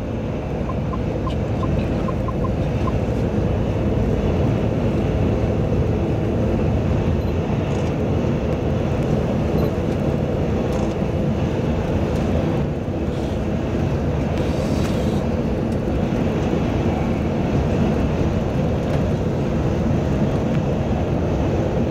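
Steady engine and tyre noise of a tour bus cruising on an expressway, heard inside the passenger cabin. There is a short hiss about fifteen seconds in.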